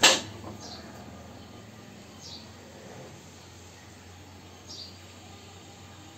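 A sharp knock right at the start, then faint steady background hum with a small bird giving short, high, falling chirps three times, about two seconds apart.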